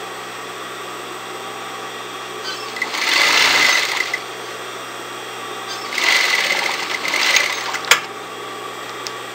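Industrial sewing machine stitching a narrow rolled hem in lightweight fabric, in two short runs of about a second each, its motor humming steadily in between. A sharp snip of scissors near the end.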